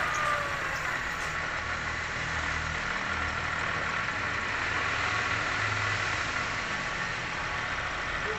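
Toyota Great New Avanza engine idling steadily with a rough "krek krek" bearing noise, which the mechanic traces to a worn water pump bearing and a worn alternator bearing.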